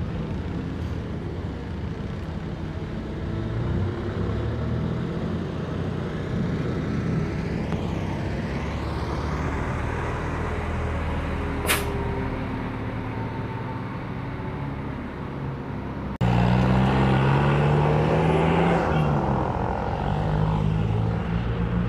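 Diesel engines of coaches running at low speed, with one brief sharp hiss of compressed air from the air brakes about halfway through. After an abrupt cut, a second bus's engine idles louder and steadier, its note wavering briefly near the end.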